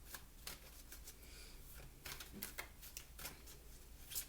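Oracle cards being handled: a series of soft papery clicks and slides as cards are shuffled or moved, with a sharper card snap near the end, over a faint low hum.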